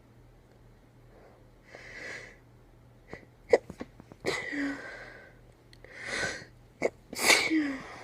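A woman's sneezing fit: a run of sneezes brought on by a tickle in the nose, each preceded by a sharp in-breath. The last sneeze is among the loudest and ends in a short voiced falling tail.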